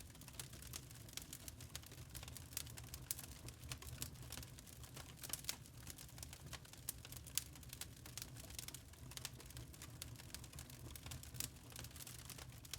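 Wood fire in a fireplace crackling, with small irregular snaps and pops from the burning logs over a low steady rumble.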